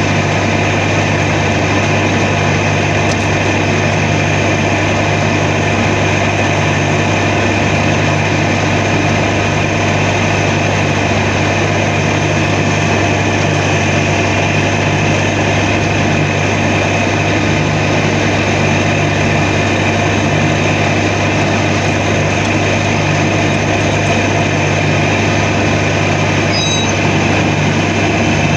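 John Deere 997 zero-turn mower's diesel engine running steadily while mowing, with an even drone that holds the same pitch and level throughout.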